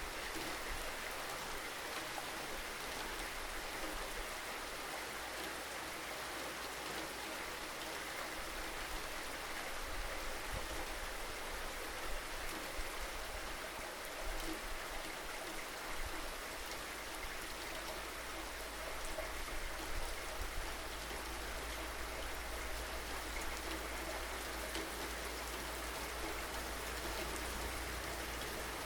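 Steady rain falling, an even hiss of drops with a constant low rumble underneath and a few slightly louder spatters now and then.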